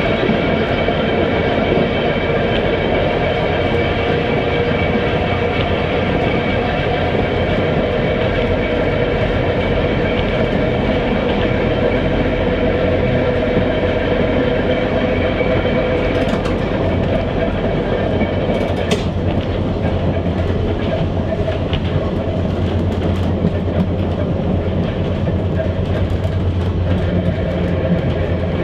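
Manx Electric Railway Vestibuled Saloon No.6 tramcar running along the line, heard from inside the saloon: the rumble and clatter of the wheels on the rails under a steady whine from the motors and gears. The whine fades about halfway through while a deeper hum grows, with a couple of sharp knocks just past the middle.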